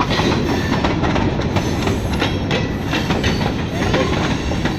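Loaded covered hopper cars of a freight train rolling past close by, their steel wheels clattering over the rail joints in a steady, rumbling run of knocks.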